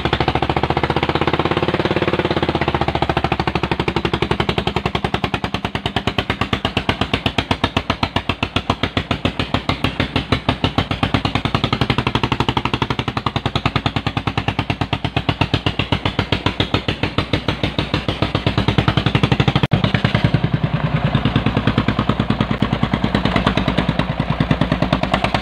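Single-cylinder diesel engine of a modified farm tractor running hard under heavy load, a fast, even chugging that swells louder near the end. It is labouring to haul a trailer of oil palm fruit bunches up a steep slope, with thick exhaust smoke.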